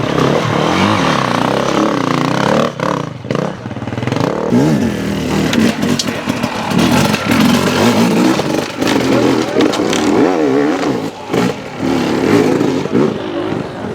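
Enduro motorcycle engines revving hard and blipping the throttle over and over, the pitch rising and falling in quick swings, with some clatter mixed in.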